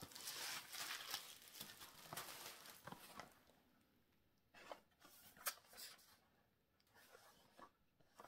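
Faint rustling and crinkling of clear plastic wrapping pulled off a small boxed candle, dying away about three seconds in. After that, near silence with a few light ticks.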